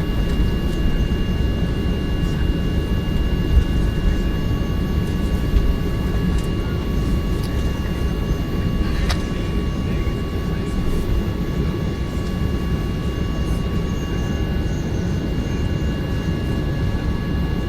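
Jet airliner noise: a steady deep rumble with a few faint steady whining tones above it, and one short click about nine seconds in.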